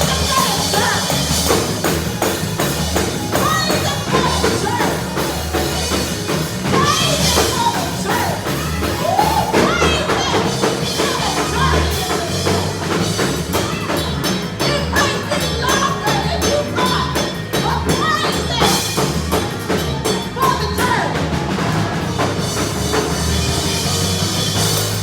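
Church praise band playing an up-tempo gospel groove with a steady driving bass and drum beat and tambourine, with voices singing and shouting over it.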